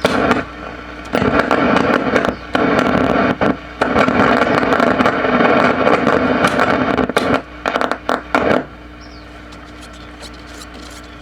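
Shortwave static from the Grundig Majestic 7005 tube radio's speaker on its shortwave 2 band with no antenna: a loud rushing hiss broken by many crackles and clicks. About eight and a half seconds in it drops to a low steady hum and hiss.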